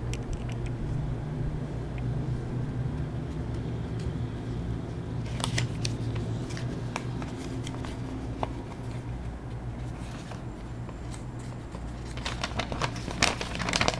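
A small paper instruction booklet being handled and its pages turned, rustling in short spells about five and a half seconds in and again near the end, over a steady low hum.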